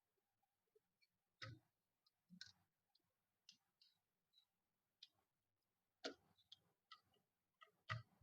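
Faint, scattered clicks and taps of small plastic front-panel connectors being handled and pushed onto motherboard header pins, about ten in all at irregular intervals.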